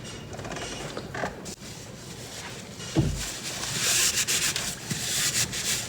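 Rubbing and wiping, with a single knock about three seconds in.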